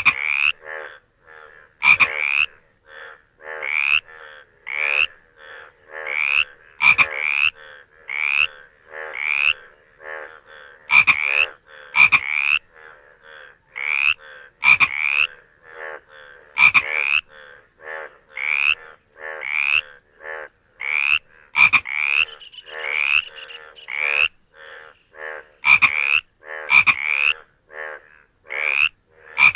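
Frogs croaking in a continuous, uneven series of short calls, about two a second, some loud and close and others fainter.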